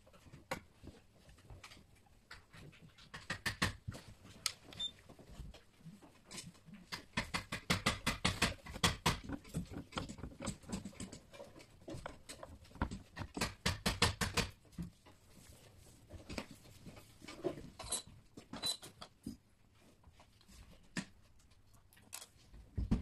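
Hand screwdriver working the hinge screws of a gun safe: quick runs of small clicks and scrapes of the tip in the screw heads and metal hinges, in several spells with short pauses between. A single knock near the end.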